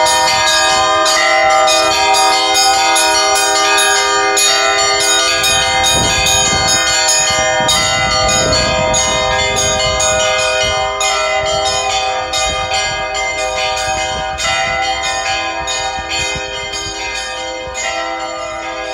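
Orthodox church bells ringing: rapid repeated strikes, about three a second, on several bells of different pitches, each note ringing on over the others, growing slightly fainter toward the end.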